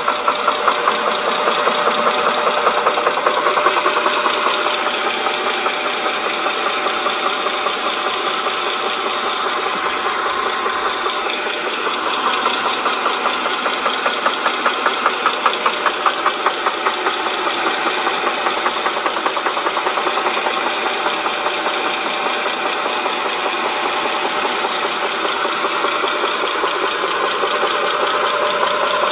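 Dodge Charger 2.7 V6 engine running steadily with a fast, even knocking. The owner puts the knock down to the timing chain, with probably a broken chain guide or tensioner.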